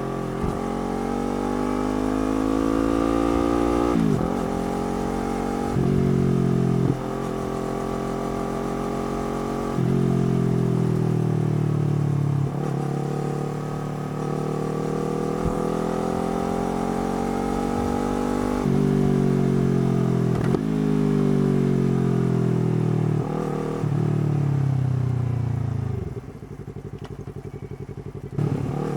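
Yamaha R3's 321 cc parallel-twin engine and exhaust under way, revving up and shifting gears over and over, each climb in pitch cut off by a brief drop at the shift. Near the end the throttle closes and the engine falls to a low, quieter rumble.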